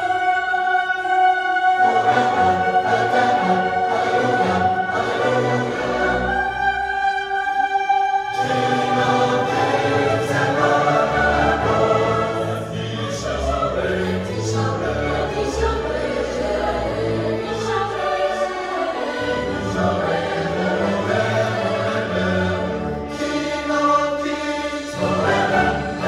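A large mixed choir singing in long held chords, accompanied by a string orchestra of violins, cellos and double basses.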